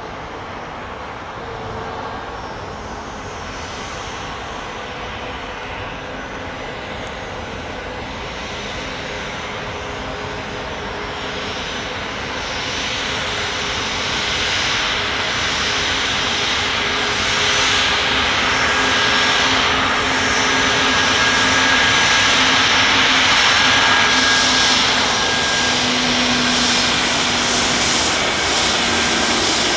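Boeing 737 MAX 8's CFM LEAP-1B turbofan engines running: steady jet noise with high whining tones over it, growing louder from about twelve seconds in.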